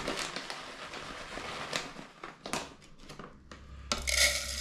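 Crinkling and rustling of plastic food packaging being handled, irregular with small clicks, with a louder burst of rustling about four seconds in.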